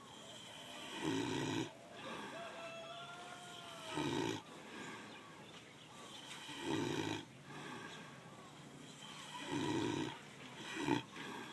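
A sleeping pig snoring, one rough snore about every three seconds.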